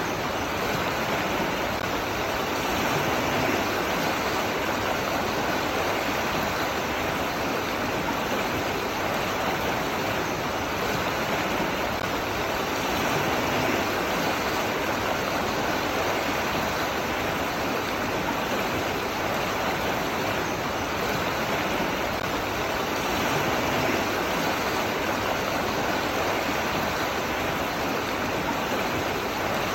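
Running water, a steady even rush without breaks or changes.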